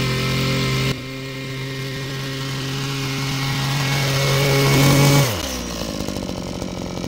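Small two-stroke engine of a wheeled crop-topping machine with a reciprocating hedge-trimmer cutter bar, running at speed while topping perilla plants. It grows louder as the machine approaches, then is throttled down about five seconds in, its pitch dropping to a lower, rougher idle.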